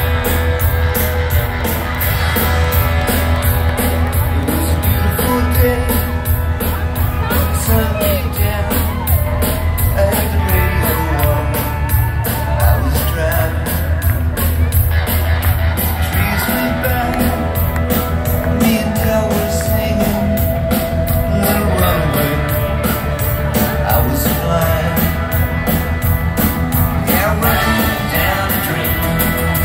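Live rock band playing a song with a female lead vocal, recorded from the audience at a concert: a steady drum beat over bass and guitars.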